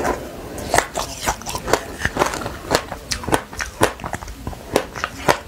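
Close-miked biting and chewing of a black-sesame-seed-coated piece, a fast irregular series of sharp crunches, about three a second.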